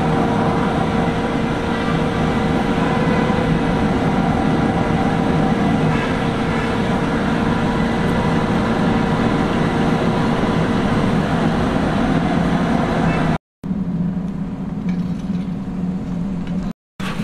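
Steady hum and rush of a furnace air blower running, feeding a wood-fired melting furnace. The sound breaks off briefly twice near the end.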